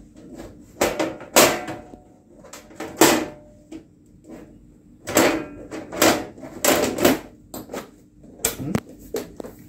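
SuperMicro server's metal top cover being set on the chassis and slid shut: a series of irregular metal clunks, scrapes and rattles, some with a short metallic ring.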